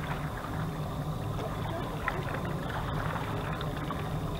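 River water lapping against a rocky bank over a steady low rumble.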